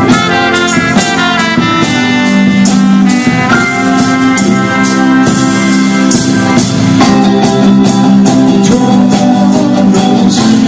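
Live band playing a song in the style of the 1960s and 70s: drum kit, electric and acoustic guitars and a held lead melody line, with no break.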